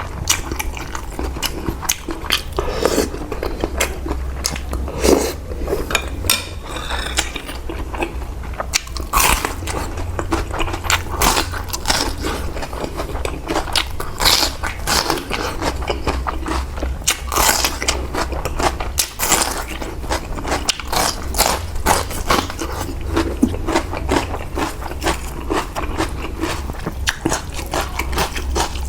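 Close-up eating sounds: a person chewing and biting into noodle soup and fresh chili, with wet smacking, irregular crunches and scrapes, over a steady low hum.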